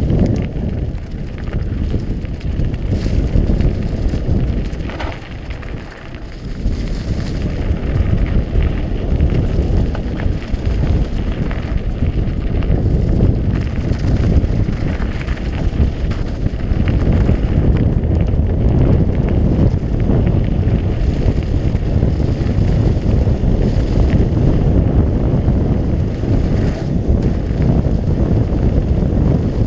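Wind buffeting a GoPro's microphone as a mountain bike speeds down a dirt forest trail, mixed with tyre rumble over packed earth and fallen leaves. Loud and steady, easing briefly about five seconds in before picking up again.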